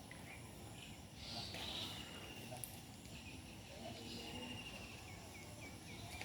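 Faint rural outdoor ambience with a small bird calling: one long thin note in the middle, then a quick run of short chirps near the end.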